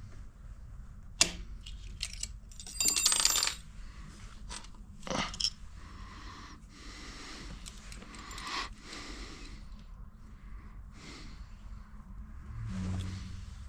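Small metal parts clinking and clattering as they are handled, with a sharp knock about a second in and a jingling metallic rattle around three seconds in, like rummaging through loose metal fittings.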